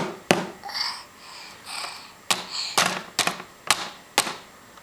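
A rubber duck toy being banged down on a plastic electronic learning toy (Teaching Turtle): a run of sharp knocks, one near the start, then after a gap of about two seconds five more at roughly two a second.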